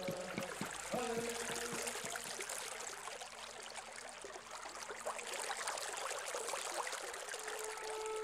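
Water running and trickling in a stream, a steady low-level gurgle. Near the end a flute begins a long held note.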